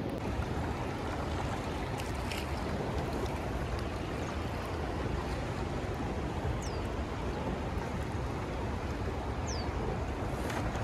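Steady rushing noise of a swollen, fast-flowing river, with wind on the microphone. Two faint high whistles, each falling in pitch, come about two-thirds of the way through and again near the end.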